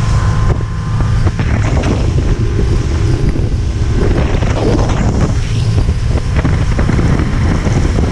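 A rigid inflatable boat running at speed across open water: a steady low rumble of wind buffeting the microphone over the boat's motor, with spray splashing and irregular knocks of the hull on the water.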